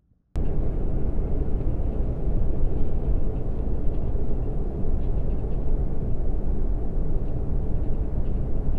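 Steady road and wind noise of a car travelling at highway speed, heard from inside the car by the side window, with a heavy low rumble. It cuts in suddenly just after the start.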